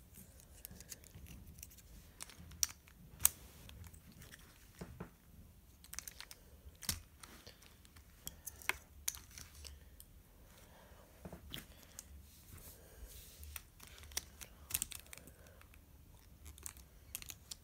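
Hard plastic pieces of a 3x3x5 twisty puzzle clicking and clacking as they are handled and fitted together, in scattered, irregular sharp clicks with quiet gaps between.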